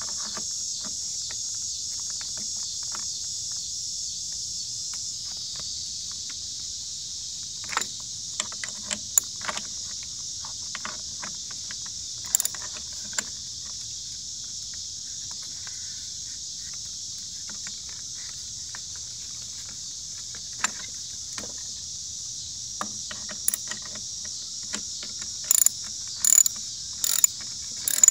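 Socket wrench ratchet working a lawnmower wheel bolt loose: scattered clicks and knocks, then, near the end, a regular run of loud ratchet clicks a little under a second apart. Steady high buzzing of insects throughout.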